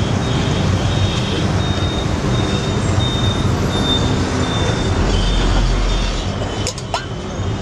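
Steady din of busy street traffic, with a deeper rumble about five seconds in and a few sharp clicks near the end.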